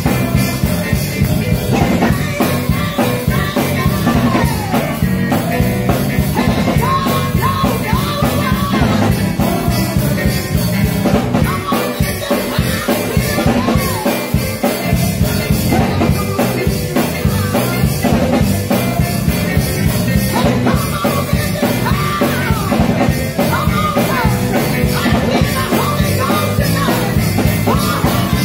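A woman singing a gospel song into a microphone over band accompaniment with a drum kit, loud and continuous.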